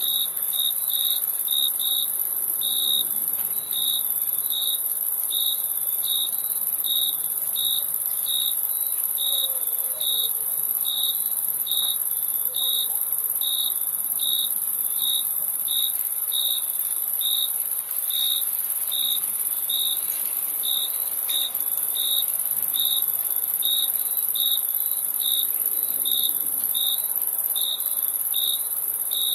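Crickets chirping: one cricket's short chirps repeat steadily, a little more than once a second, over a continuous high-pitched insect trill.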